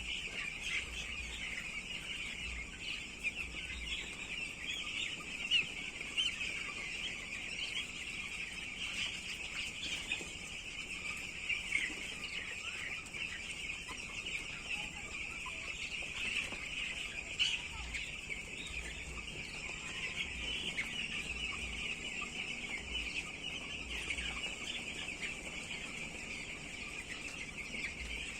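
A flock of broiler chickens calling, many high calls overlapping into a steady, dense chorus.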